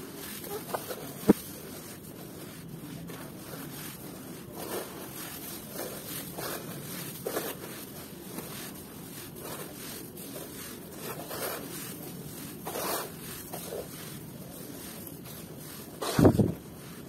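Hands crumbling and squeezing damp red dirt in a bowl: a soft, steady rustle of crushed soil with scattered small crackles, a sharp click about a second in, and a louder, heavier crunch about a second before the end.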